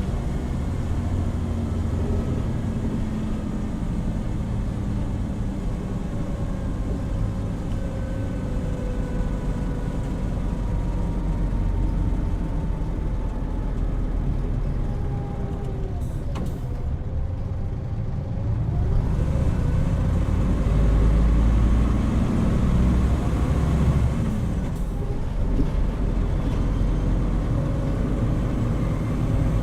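Interior running sound of a Hino Rainbow HR route bus. The diesel engine and drivetrain whine falls in pitch as the bus slows. There is a brief sharp sound about halfway through, then the engine pulls harder and the bus gathers speed again.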